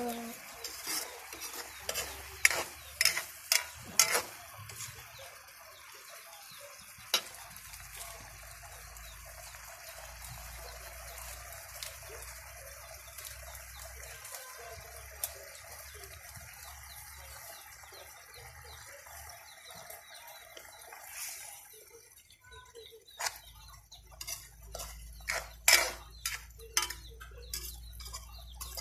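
Metal spoon knocking and scraping against a metal cooking pan while sardines and malunggay leaves are stirred, in clusters of sharp clinks near the start and again near the end. Between them a steady hiss of the dish simmering.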